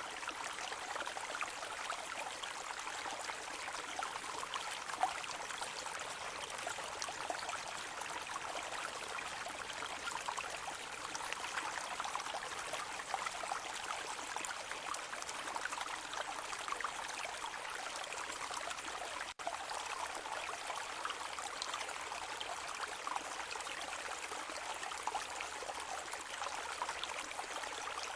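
Rain falling on a lake's surface: a steady, dense patter of many small drops hitting the water. It cuts out for an instant about two-thirds of the way through.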